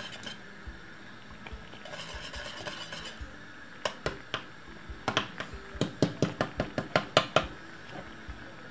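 Wire whisk stirring thick cornmeal porridge in a stainless steel pot, its wires clinking against the pot. The clinks are scattered at first, then come in a quick rhythmic run of about four a second from about five seconds in.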